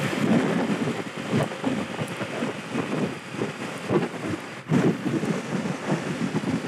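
Wind buffeting the microphone on a moving 50cc motorbike: an irregular, gusty low rumble that briefly drops out about four and a half seconds in.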